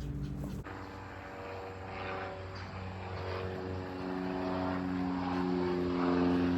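A vehicle engine accelerating after a cut about half a second in, its pitch rising slowly and growing louder.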